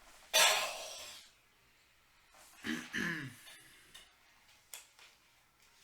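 A person clearing their throat. There is a loud, short noisy burst about half a second in, a brief voiced sound falling in pitch around the middle, and a few faint clicks near the end.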